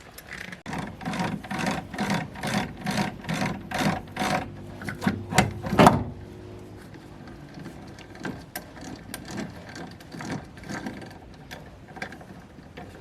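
A mechanism clicking quickly and evenly, about three clicks a second, for about five seconds, ending in a louder clack; after that only a few scattered clicks.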